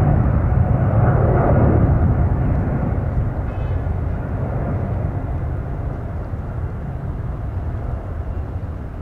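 Boeing 777-300ER's twin GE90 jet engines at takeoff thrust during the takeoff roll: a deep, steady rumble that fades as the airliner rolls away down the runway.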